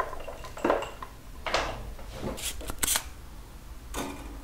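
Workbench handling noises: a few short clicks, scrapes and rustles as tools and a TV power-supply circuit board are picked up and moved, with the sharpest clicks near the middle and a last one near the end.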